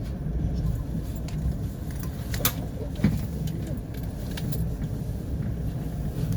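Ride noise of a moving vehicle heard from inside: a steady low rumble with light rattling, and a couple of sharp knocks about two and a half and three seconds in.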